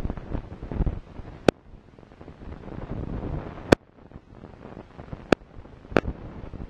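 Football kicked four times in a passing drill, each strike a short sharp thud; the first two are the loudest and the last two come close together. Wind rumbles on the microphone throughout.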